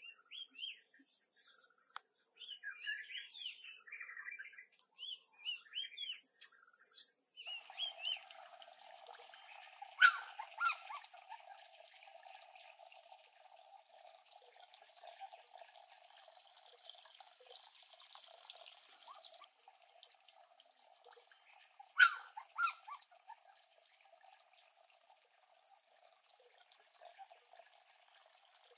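Water trickling steadily from a small waterfall into a mud-built pond, under a steady high insect-like drone. Scattered faint high chirps come in the first few seconds. Two short sharp cries stand out, at about 10 and 22 seconds in.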